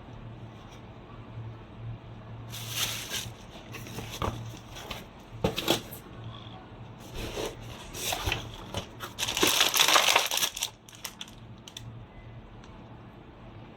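Handling noises: bursts of plastic-like crinkling and rustling with small hard clicks, over a steady low hum. The longest, loudest burst comes about two thirds of the way in.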